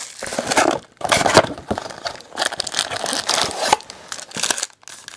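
Plastic wrapping on trading-card boxes and packs being crinkled and torn by hand, in irregular bursts with short pauses.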